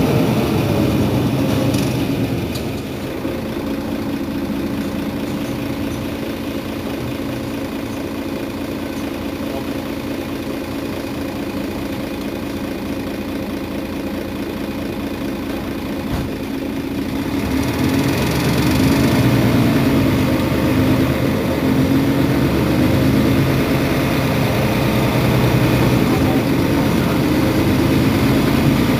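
Mercedes-Benz Citaro Facelift city bus's diesel engine running at a steady idle, then growing louder about two-thirds of the way through.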